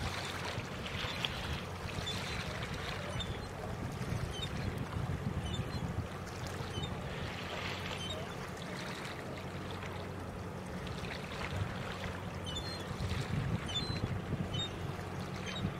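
A tug's diesel engine drones steadily across the water while it tows a log boom, heard as a constant low hum. Faint high chirps come and go over it.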